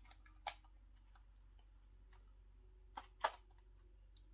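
A few sharp plastic clicks and taps as a smartphone is handled against a drone transmitter's pull-out phone mount: one about half a second in, then two close together around three seconds in, the second the loudest.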